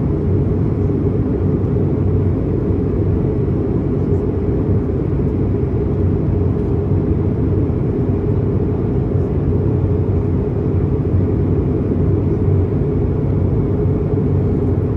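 Steady low roar of Niagara Falls' falling water, an even rumble with no breaks.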